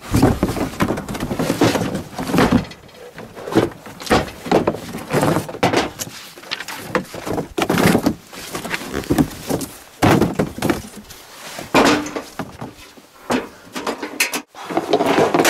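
A cardboard box being handled and opened, and a two-burner propane camp stove sliding out of it and set down on a pickup tailgate: repeated irregular thunks, scrapes and cardboard rustles.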